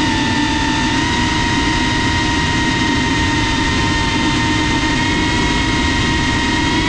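FPV quadcopter's brushless motors and propellers whining at a steady pitch over a rush of wind noise, heard through the GoPro mounted on the drone itself.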